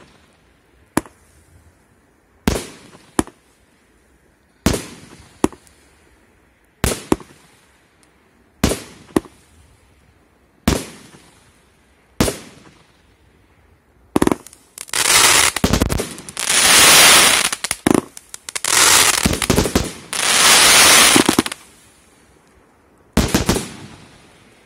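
A 136-shot firework compact (cake) firing. It gives single sharp bangs every second or two, each with a short decaying tail. About 14 seconds in comes a dense finale volley of rapid shots lasting some seven seconds, and one last quick pair of bangs near the end.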